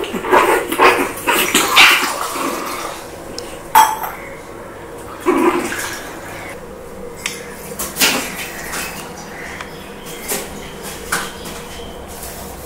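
Scattered clinks and clatter of hard objects, busiest in the first two seconds, then single sharp knocks about four, five and eight seconds in and a few lighter ones after.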